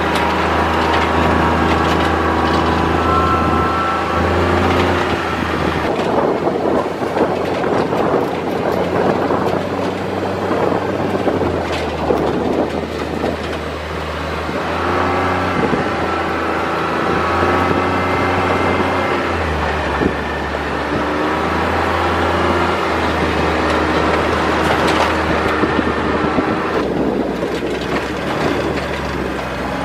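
Open off-road side-by-side's engine running as it drives along a bumpy gravel track, its pitch rising and falling with the throttle over a steady low hum. Road noise and rattling from the rough ride are mixed in, heaviest in the middle.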